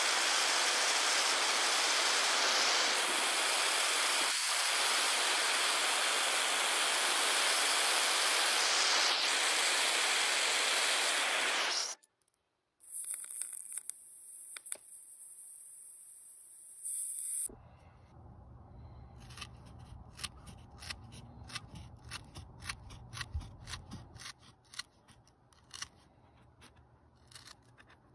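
Handheld propane torch burning with a steady loud hiss as it heats steel rivets to soften them, cutting off suddenly about twelve seconds in. In the last third, a quick run of sharp snips from aviation tin snips cutting a leather strap.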